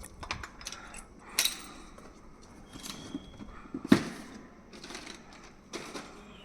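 Scattered clicks and knocks of tools and metal hardware being handled during electrical switchgear work, with one sharp knock about four seconds in.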